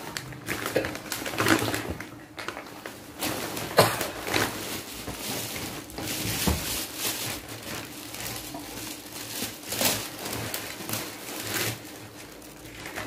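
Wrapping paper and a plastic bag rustling and crinkling as a gift is torn open by hand and its contents pulled out, in a string of short, irregular crackles over a faint steady hum.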